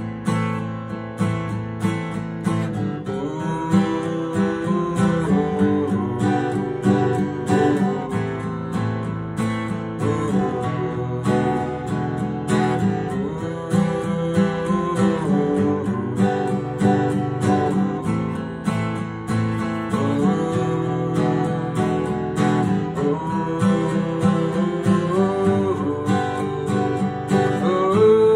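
Acoustic guitar strummed steadily, with a man singing along at times.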